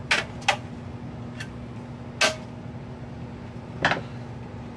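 Sharp clicks and knocks of a Macintosh 512K logic board being levered with a screwdriver and pushed into its metal chassis: four distinct clicks spread over about four seconds, with a fainter one between them.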